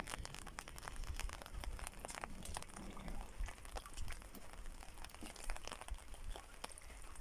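Irregular sharp ticks and crackles of raindrops striking a hard surface during a thunderstorm, over a faint low rumble.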